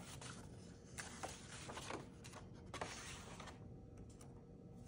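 A picture book being handled, its last pages turned and the book closed: faint paper rustling with a few soft taps, which stop about three and a half seconds in.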